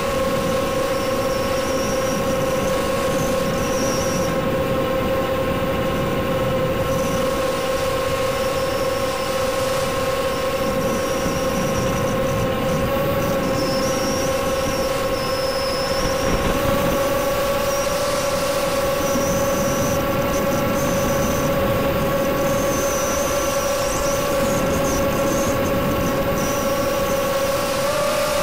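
ZMR250 racing quadcopter's four brushless motors whining at a nearly steady pitch, heard from the quad's own onboard camera, with wind buffeting the microphone.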